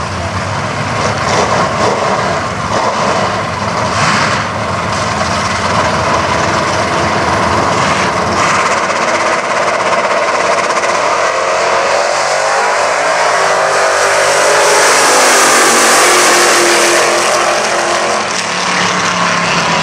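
Two drag-racing cars' engines revving at the starting line, then launching together and accelerating hard down the strip, the engine pitch sweeping upward and getting loudest near the end.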